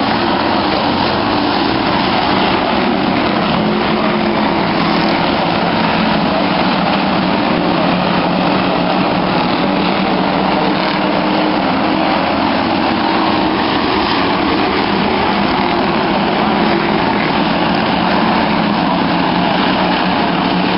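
A pack of short-track stock cars running together around an oval: many engines blending into one loud, steady drone that never lets up.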